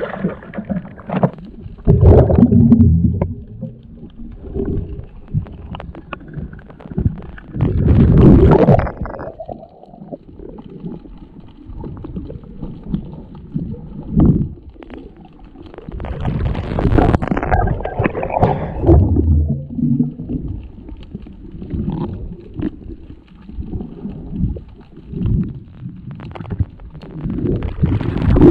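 Muffled water noise around a camera at and under the water surface: low rumbling and gurgling of moving water and bubbles in irregular swells, loudest about two, eight and seventeen seconds in.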